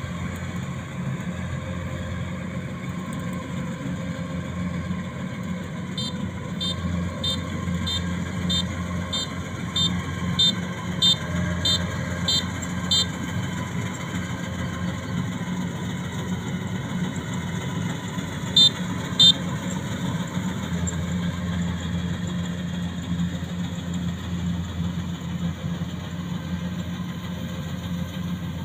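Rice combine harvester's diesel engine running steadily. A high electronic beeper sounds in a run of about a dozen evenly spaced beeps a few seconds in, then twice more later.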